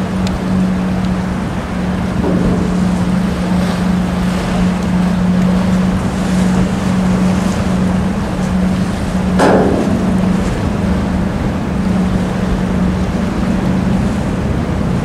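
Steady low engine drone with a constant hum over a wash of noise, with a brief whoosh about nine and a half seconds in.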